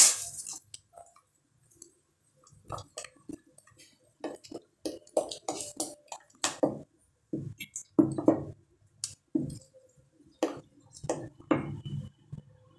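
Wooden cooking stick stirring thick porridge in a metal pot: irregular wet squelching and slapping sounds, with light knocks of the wood against the pot.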